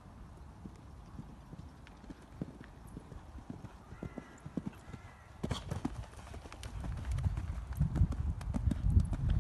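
Horse cantering over an arena surface, its hoofbeats a dull thudding that grows much louder and closer over the last few seconds. There is a sharp knock about five and a half seconds in.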